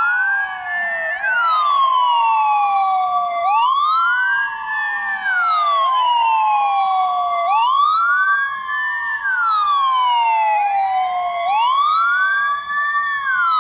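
Ambulance siren wailing: the tone climbs for about a second and a half and slides back down over two and a half seconds, repeating about every four seconds. A second, steadier siren tone sounds underneath it.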